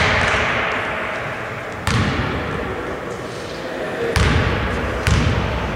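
Basketball bouncing on a hardwood gym floor, three sharp bounces about two seconds, then one second apart, each ringing out in the echo of the hall, as a player dribbles before a free throw.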